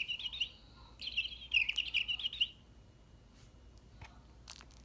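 Chirping cat toy giving rapid high bird-like chirps in two quick bursts, the second stopping about two and a half seconds in. A few faint clicks come near the end.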